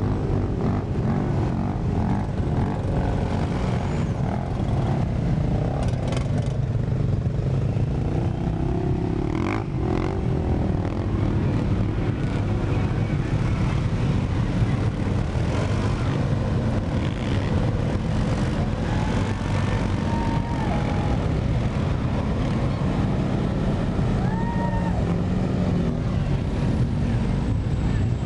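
Steady low rumble of motor vehicle engines running, without pause.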